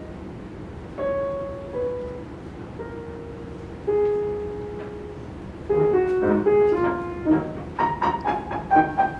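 Grand pianos playing a classical two-piano arrangement: a few single notes held one at a time with gaps between them, then faster notes coming in past the halfway point and building into a quick, louder run of repeated notes near the end.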